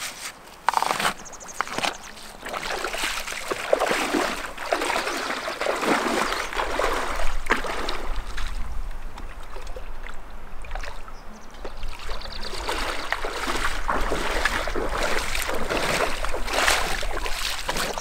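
Water splashing and sloshing, coming in irregular swells and lulls.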